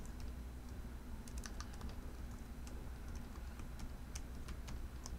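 Computer keyboard being typed on: a scattered run of faint key clicks, quickest about a second in and then spaced out, over a low steady hum.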